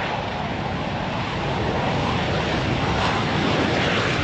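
F-15 fighter jet's twin turbofan engines accelerating it down the runway on its takeoff roll: loud, steady jet engine noise, growing louder toward the end.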